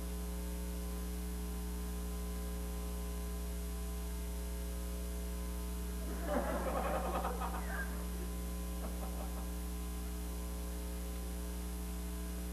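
Steady electrical mains hum on the recording, with a short, louder burst of sound about six seconds in that lasts under two seconds.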